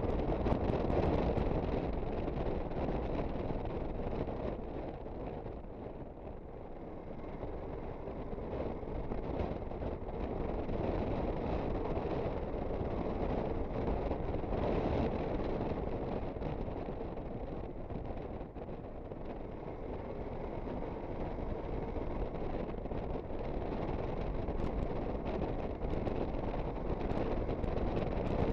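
Aprilia Sportcity Cube 250 scooter on the move: steady wind rush on the microphone over the engine and road noise, easing off twice for a few seconds.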